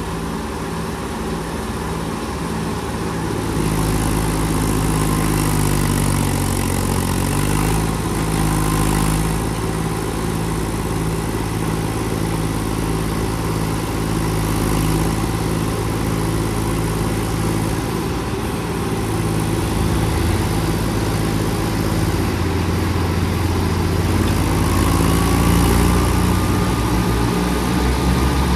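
Diesel engines of a Massey Ferguson tractor and a Mahindra 265 DI tractor running hard under load as one tries to pull the other out of deep mud by a chain. The engine note sags and recovers about six seconds in, and rises again near the end.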